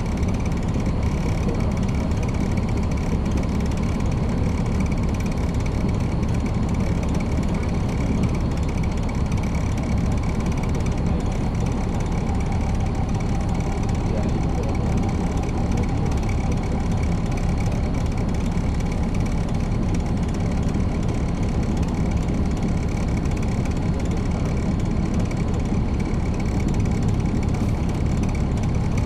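Caterpillar C13 ACERT diesel engine of a 2009 NABI 40-SFW transit bus running steadily, heard from the rear seat inside the bus.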